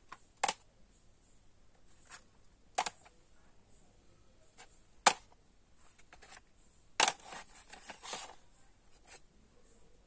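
Plastic audio cassette cases clicking and clattering as they are picked up and handled. Sharp clicks come every two seconds or so, with a short run of clatter around seven seconds in.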